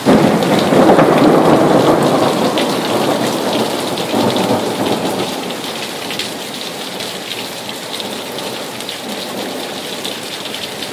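A thunderclap breaks suddenly and rolls on as a deep rumble, swelling again about four seconds in before fading, over steady rain.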